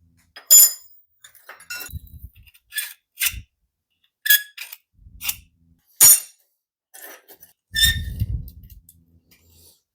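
Small metal pieces and tools being handled and set down: a string of sharp metallic clinks with brief ringing, the loudest two about half a second and six seconds in, mixed with a few dull knocks.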